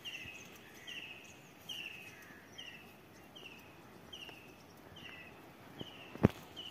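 A bird calling a short, high, falling note over and over, about once every 0.8 seconds. A single sharp knock about six seconds in is the loudest sound.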